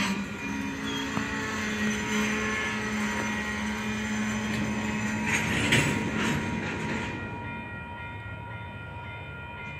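Double-stack intermodal freight train rolling slowly past as it brakes to a stop, its cars rumbling with several steady whining tones and a short rush of noise a little past halfway. The sound dies down over the last few seconds as the train comes to a halt.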